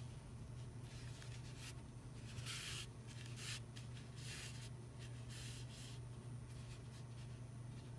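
Yellow thread being drawn and wrapped around a yarn-wrapped temari ball, with fingers rubbing the wool: several short, soft scratchy swishes, roughly a second apart, over a steady low hum.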